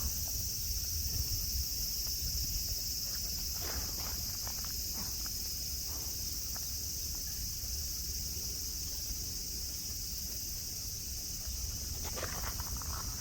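Cicadas singing in a steady, continuous high-pitched chorus. A few brief rustles or crackles come about four seconds in and again near the end.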